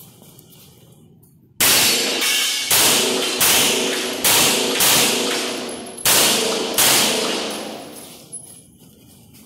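Handgun shots on an indoor concrete range: about ten rounds, several in quick pairs, starting about a second and a half in and stopping around seven seconds. Each shot is followed by a long echoing tail off the concrete walls.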